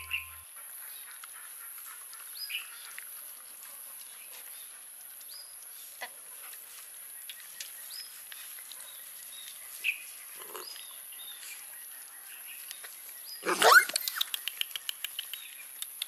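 Several puppies eating from a bowl: soft lapping and smacking with brief high squeaks now and then. About 13 seconds in comes one sudden loud noise, followed by a quick run of clicks for a couple of seconds.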